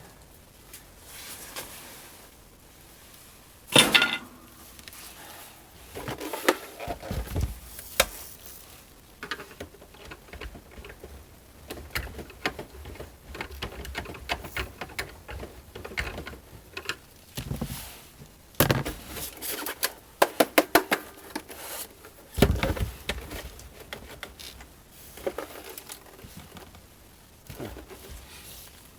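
Hands working on a plastic boombox cabinet: scattered clicks, taps and knocks of parts and small tools, with a quick run of clicks a little past the middle and a sharper knock soon after.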